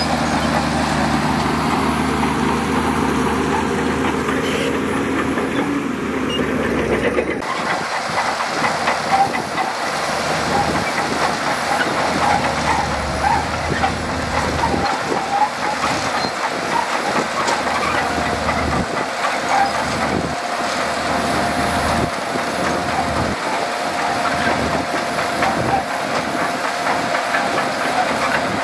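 Shantui DH17C2 crawler bulldozer working: its diesel engine runs with a steady pitch that rises over the first few seconds. About seven seconds in, the sound changes abruptly to a dense rattling clatter with a steady high whine.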